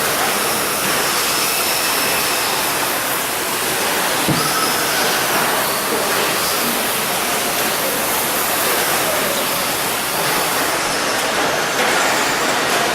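Electric 2WD short course RC trucks racing on the track: a steady hiss of motors and tyres, with faint high whines coming and going and a single low knock about four seconds in.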